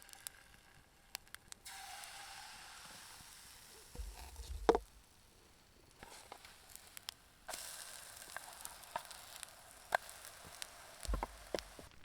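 Food sizzling in a hot pan, the hiss starting suddenly twice and slowly dying down, with scattered clicks and two low knocks of handling.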